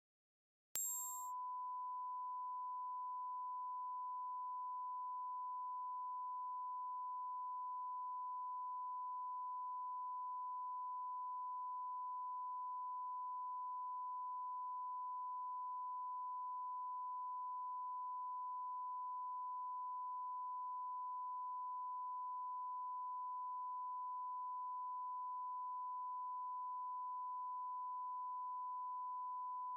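A single steady, pure electronic tone, like a test-tone beep, switching on with a click just under a second in and holding at one pitch and one level without change.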